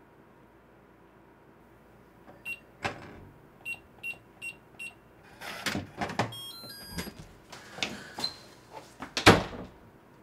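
Digital door lock being opened from outside: five short keypad beeps as the code is entered, then the lock's short chime melody, followed by the door opening with clunks and a loud thump near the end.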